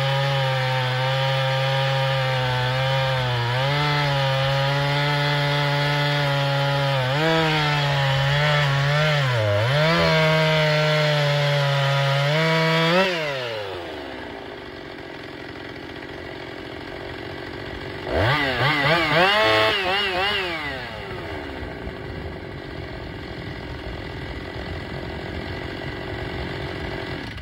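Husqvarna 262XP two-stroke chainsaw, freshly rebuilt with a new piston, seals and carburettor diaphragm kit, running at high revs with its pitch dipping several times. About 13 seconds in the throttle is released and it drops to idle, then it is blipped up once more and falls back to idle.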